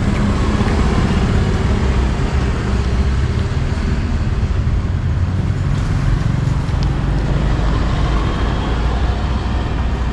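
Street traffic: a motor vehicle's engine running close by, a steady low rumble with traffic noise around it.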